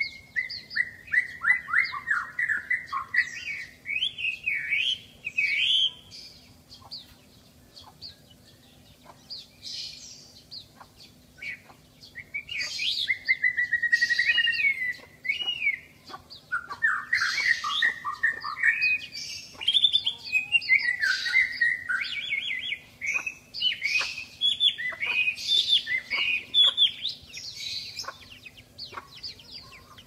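Caged hwamei (melodious laughingthrush) singing a loud, varied song of rapid sweeping whistled phrases. The song breaks off about six seconds in, leaving only a few short sharp chirps, and resumes in dense bursts about twelve seconds in.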